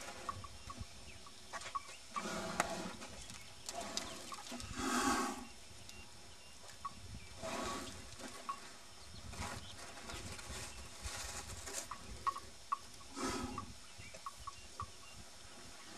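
Two Asian elephants feeding from buckets of rice: a few short, breathy bursts, among many small knocks and clicks.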